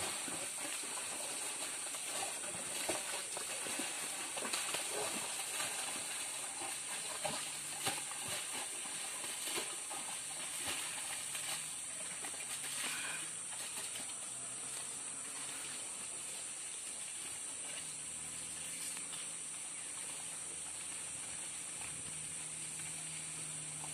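Forest ambience: a steady high-pitched hiss, with scattered crackles and rustles in the first half. A faint low hum comes in about two-thirds of the way through. No elephant calls are heard.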